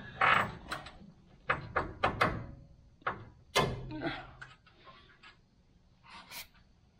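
Irregular knocks and clunks, a dozen or so, loudest and closest together in the first four seconds and a few fainter ones later: a steering stabilizer end being worked into its tapered mount on the steering linkage.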